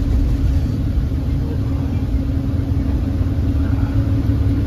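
Steady low rumble of a vehicle engine and road noise, with a faint constant hum, as of a vehicle on the move.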